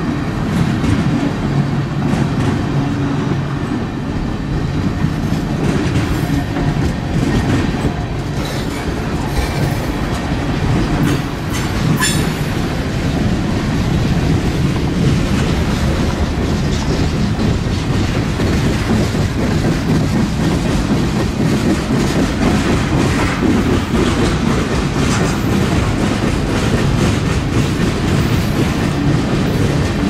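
Freight cars rolling past on steel wheels: a steady rumble with clickety-clack as the wheels cross rail joints. A few sharp metallic squeaks and clicks come between about nine and twelve seconds in.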